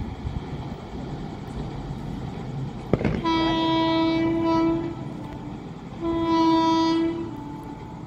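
Locomotive horn of the 18048 Vasco da Gama–Shalimar Express sounding two blasts of about a second and a half each, about three seconds apart. Each blast ends in a short, lower note, and a sharp click comes just before the first. The horn warns as the train runs through the station without stopping, over the low rumble of the approaching train.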